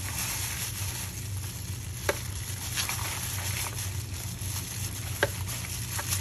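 Plastic brining bag crinkling as it is twisted and knotted shut over a turkey in brine, with two sharper crackles, about two seconds in and about five seconds in. A steady low hum underneath.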